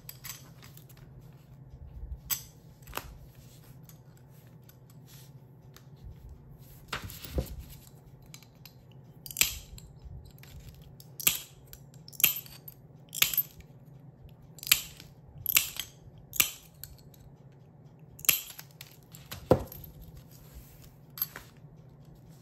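Small pieces of cut glass clicking as they are set down one by one on a glass base: about fifteen short, sharp clicks at irregular intervals, coming thicker in the second half.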